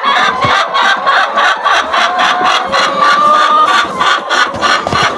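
A large flock of laying hens clucking, many calls overlapping in a dense, continuous chorus.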